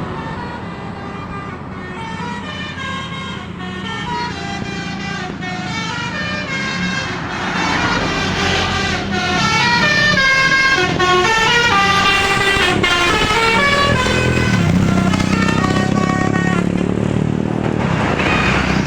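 A bus's 'telolet' Basuri melodic horn plays a tune of quick stepping notes over the bus's running engine. It gets louder from about eight seconds in.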